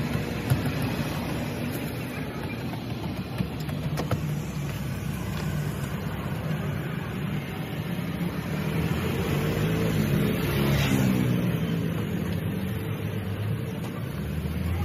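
Street traffic: steady road noise, with a motor vehicle's engine passing by and loudest about ten seconds in.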